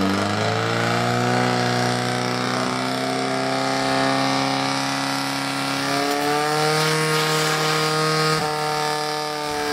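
Firesport pump engine running at high, steady revs, its pitch shifting slightly about six and eight and a half seconds in.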